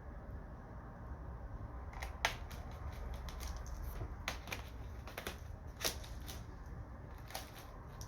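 Irregular sharp clicks and taps of small hard parts being handled on a laptop, starting about two seconds in, with a low steady background hum.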